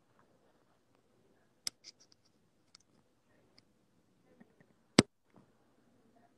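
A few faint scattered clicks and ticks, then one sharp, much louder click about five seconds in.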